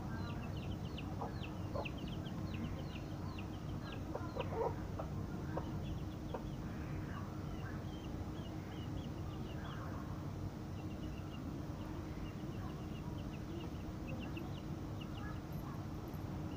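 Young chicks peeping in quick, high chirps that fall in pitch, with a hen clucking a few times in the first few seconds, over a steady low background rumble. The chicks are hungry.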